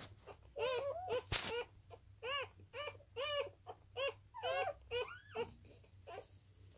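Newborn wire-haired dachshund puppies squeaking and whimpering while nursing: about a dozen short, high squeaks, each rising and falling in pitch, dying away after about five seconds. One brief knock a little over a second in.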